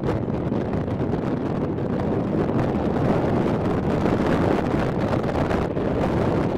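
Wind buffeting the microphone on an open boat deck: a steady low rushing noise without pauses.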